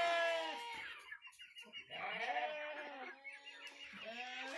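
A flock of Light Brahma chickens calling, several drawn-out, pitched calls overlapping. The loudest call comes right at the start, and one long, level call is held near the end.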